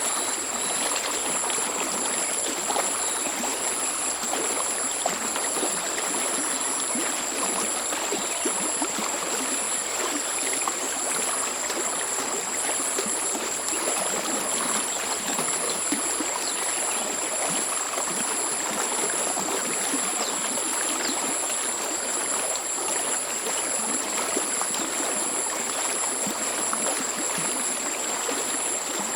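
Mountain stream flowing and babbling over rocks in a steady, even rush. A steady high-pitched, fast-pulsing drone runs throughout.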